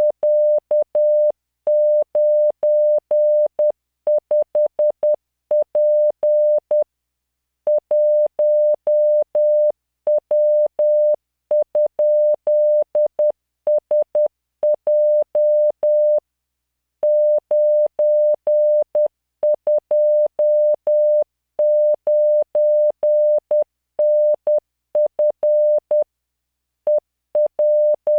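Computer-generated Morse code practice: a steady 600 Hz tone keyed on and off at 10 words per minute, sending random five-character code groups of letters, figures and punctuation, with longer pauses between groups. Each tone starts and stops with a slight click.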